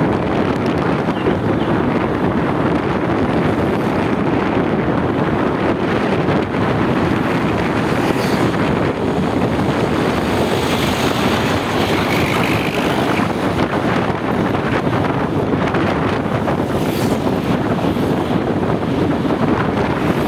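Steady, loud wind buffeting the microphone, over a rush of road traffic noise.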